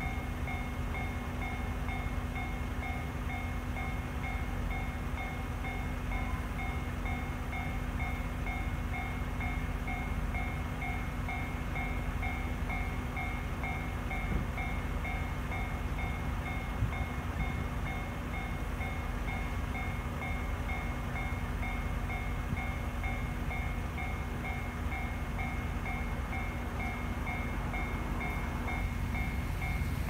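Japanese railway level-crossing warning bell ringing continuously, a quick, even, repeating two-pitch electronic ding, over a steady low rumble.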